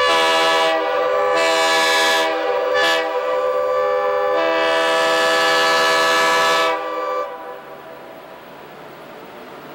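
Air horn of a BC Rail GF6C electric locomotive sounding one long, loud chord of several notes as the train approaches, swelling and easing in strength, then cutting off about seven seconds in. A faint rumble of the approaching train remains.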